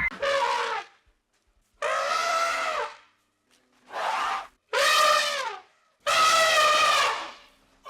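An animal calling five times: loud, harsh, drawn-out cries, each half a second to a second and a half long and dropping in pitch at the end.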